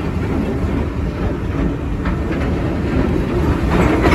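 Train running along the track: a steady low rumble with a few faint clicks, growing a little louder near the end.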